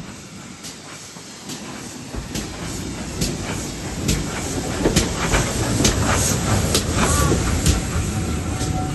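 Railway train running on the line, its wheels clicking over the rail joints about once a second, with a rumble that grows steadily louder.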